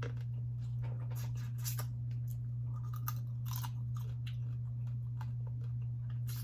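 Cold blue crab being eaten: scattered small cracks and clicks of shell being broken and picked apart, with chewing. Underneath runs a steady low hum from a household appliance.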